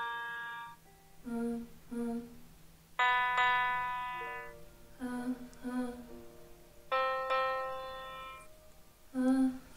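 A single piano note sounds and fades, then a woman sings two short "ha, ha" syllables on that pitch. The pattern repeats three times, at one note per semitone step of a pitch-matching vocal exercise around middle C.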